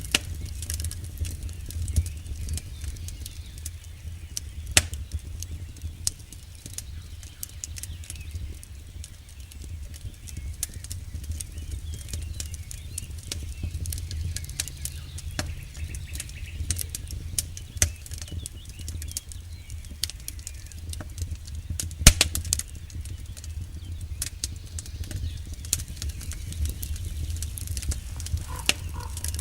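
Wood campfire burning: irregular crackles and pops of the burning logs over a low steady rumble, with the sharpest pop about 22 seconds in. A few short high chirps near the end.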